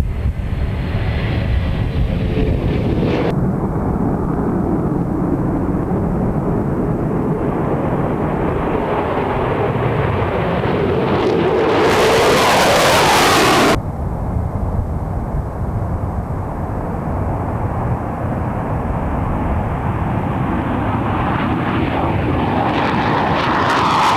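Military jet aircraft taking off and passing, first a KC-135 Stratotanker's jet engines and then an F-15E Strike Eagle climbing out, the jet noise falling in pitch as each goes by. The sound cuts off abruptly about three seconds in and again after a very loud stretch around the middle, and another jet's noise builds near the end.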